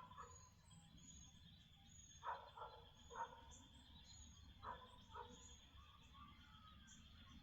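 Faint outdoor dusk ambience: a few short distant animal calls, about four spread through, with small birds chirping high and briefly.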